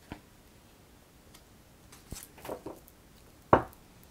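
Oracle cards being handled on a cloth-covered table. There is a soft tap as a card is laid down, a few light rustles and taps about halfway through, and a louder single knock near the end as the deck is picked up.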